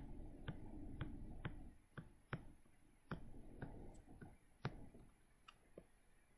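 Faint, irregular clicks and taps of a stylus on a tablet screen while words are handwritten, about a dozen spread unevenly.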